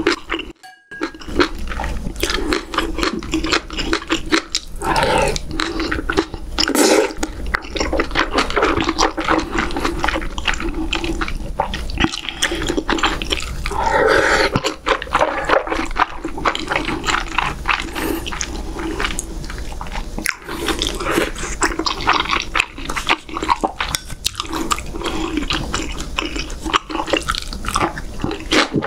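Close-miked wet chewing and slurping of doenjang stew with beef rib and chewy bunmoja (sweet potato starch balls), going on with hardly a break.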